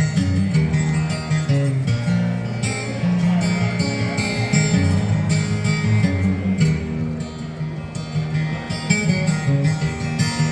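Live country band playing an instrumental break with no singing, the acoustic guitar strummed steadily along with the other instruments.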